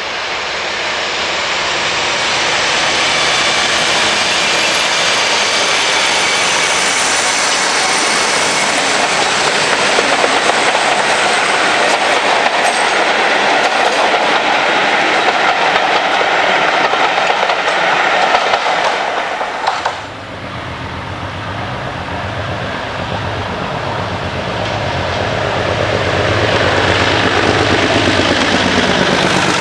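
A diesel-hauled passenger train passing, the coaches' wheels running over the rails in a loud, even rumble with a faint high squeal. About two-thirds of the way in the sound cuts to a Class 37 diesel locomotive passing close, its engine running with a deep, steady note that grows louder near the end.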